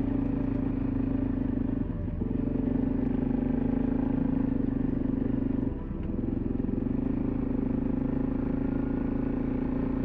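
Suzuki DR-Z400's single-cylinder four-stroke engine running steadily under way on a dirt track, heard from on board, with two brief dips in its note about two and six seconds in.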